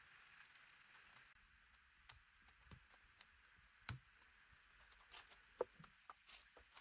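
Near silence broken by a handful of faint clicks and taps from 3D-printed plastic engine-model parts being handled and fitted together. The sharpest click comes a little past five and a half seconds.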